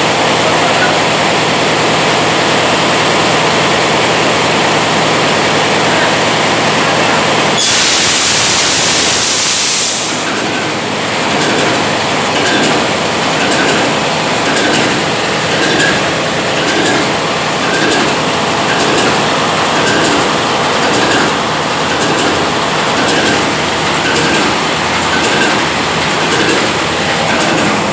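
A freshly overhauled main marine diesel engine on test. A steady engine hum is cut about eight seconds in by a loud rush of air lasting a couple of seconds. After that the engine runs with a slow, even beat, a little more than one a second.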